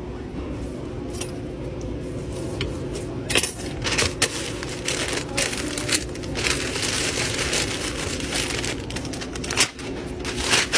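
Deli wrap paper rustling and crinkling as a sub sandwich is folded and rolled up in it, with sharp crackles of the paper from about three seconds in. A steady low hum runs underneath.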